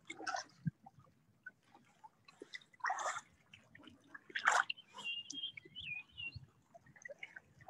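Kayak paddle blades dipping and splashing in the water, with drips, as the kayaks are backed up. There are a few separate splashes, the loudest about three and four and a half seconds in.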